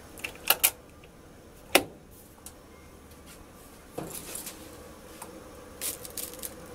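A few sharp clicks and knocks from hands working the top and controls of an old Maytag top-load washer, the loudest in the first two seconds and lighter clicks near the end as the timer dial is handled.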